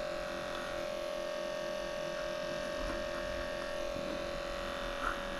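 Electric dog-grooming clipper with a #15 blade running with a steady hum while shaving matted coat off a bichon's hind leg.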